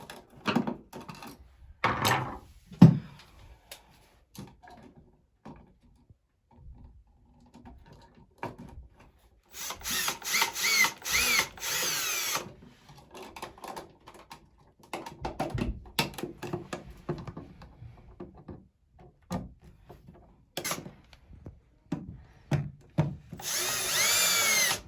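Cordless drill-driver running in two short spells, about three seconds in the middle and about a second and a half near the end, its motor whine rising and falling as it drives the outlet's mounting screws. Clicks and knocks of handling come between.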